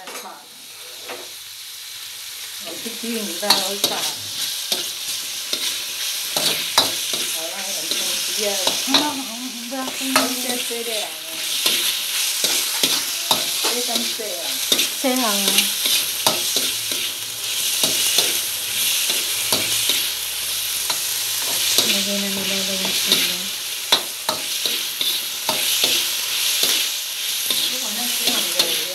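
Pork pieces sizzling in hot fat in a black wok, the sizzle building over the first few seconds. They are stirred with a metal spatula that clicks and scrapes against the pan.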